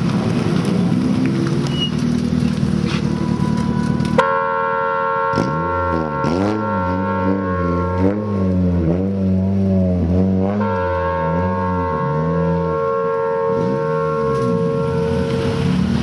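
Honda Fit race car's four-cylinder engine through its aftermarket exhaust: running rough at first, then, after an abrupt change about four seconds in, revved in repeated blips, its pitch rising and falling with each one. Steady held tones run alongside the revs through much of the rest.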